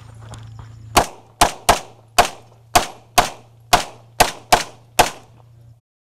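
Ten pistol shots fired in quick succession from an Open-division 9mm major race pistol with a red-dot sight, mostly about half a second apart, with two quick doubles.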